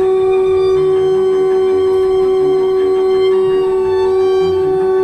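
Train horn sounding one long, unbroken blast at a single steady pitch, blown as a mourning tribute.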